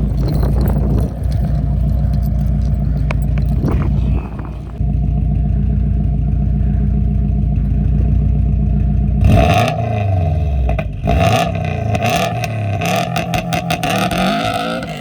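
Subaru WRX engine running steadily, then about nine seconds in its pitch swings up and down as it revs, with rattling, scraping noise over it.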